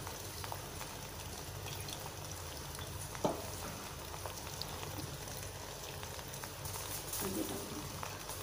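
Faint, steady sizzle and crackle from a pot of layered rice and meat heating on a low flame, with oil just dripped over the top. A single light click about three seconds in.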